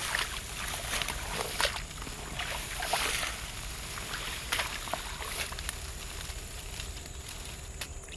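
Fern undergrowth rustling and snapping, with water sloshing in a shallow swamp hole as a thin wooden pole for a fishing set line is pushed in and set by hand. Irregular brushes and snaps, the loudest about three seconds in.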